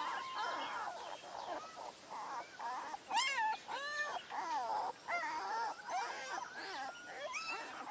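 A litter of young puppies whining and whimpering: many short, high cries that rise and fall, overlapping one after another.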